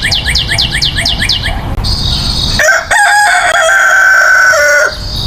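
A fast run of bird chirps, about seven a second, for the first second and a half, then a rooster crowing for about two seconds.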